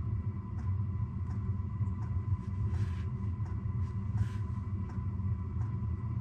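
Steady low rumble with faint regular ticks about every 0.7 seconds, and two brief hissing bursts about halfway through.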